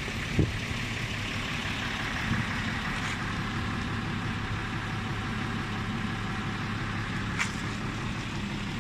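Steady hum of an engine idling in the background, with a short thump just after the start and a sharp click near the end.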